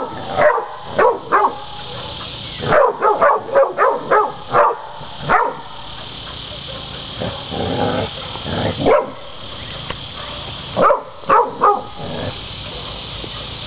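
Catahoula cur dogs barking at penned hogs, baying them to hold them in place: scattered barks, a quick run of about eight barks around three seconds in, a few single barks, and a run of three near the end.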